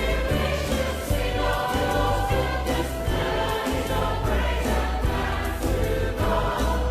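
A group of voices singing a hymn together over instrumental accompaniment with sustained low bass notes.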